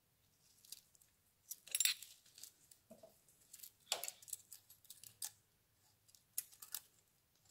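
Light metallic clicks and scrapes of hand tools at the valve gear of a Yamaha Drag Star 1100's V-twin: a wrench and hex key on a valve adjuster screw and locknut, and a feeler gauge being worked in to check the valve clearance. Scattered quiet taps, with a sharper scrape about two seconds in and again about four seconds in.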